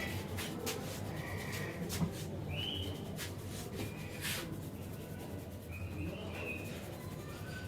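Birds chirping in short scattered calls over a steady low hum, with a few sharp taps or clicks, the loudest about two seconds in.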